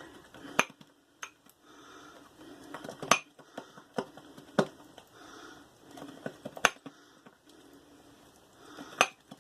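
Boar-bristle shaving brush whipping lather in a shaving mug: soft repeated swishing strokes, with scattered sharp clicks where the brush strikes the mug.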